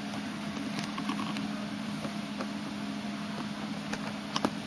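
A steady low hum over room hiss, with a few faint clicks near the end.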